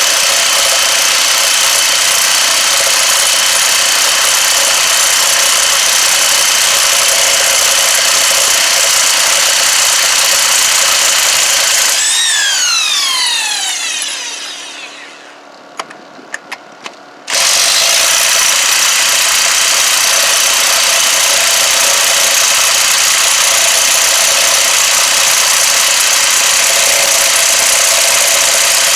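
Bauer 1/2-inch corded electric impact wrench running steadily under load while taking lug nuts off a van wheel. About 12 s in it is released and its whine falls in pitch as it spins down, a few sharp clicks follow, and about 17 s in it starts again abruptly and runs on.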